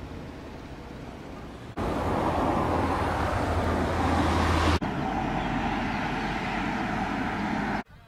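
Steady outdoor background noise from clips spliced together, with no clear single source. It jumps abruptly louder about two seconds in, changes character near five seconds, and cuts off sharply just before the end.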